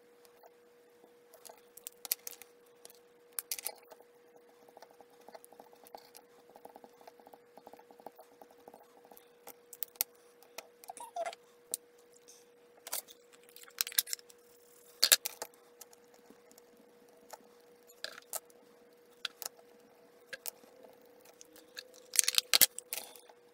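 Scattered small clicks, taps and scrapes of marker pens and card being handled on a craft desk, with a louder flurry near the end as the card panel is shifted, over a steady faint tone.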